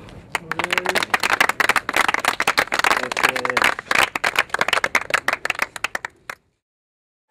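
A small group of people clapping their hands in applause, with a couple of short voices calling out among the claps. The clapping fades out about six seconds in and is followed by silence.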